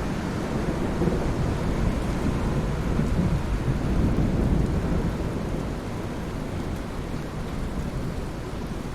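Steady rain with a long, low roll of thunder. The thunder builds over the first few seconds, peaks around the middle, and dies away toward the end.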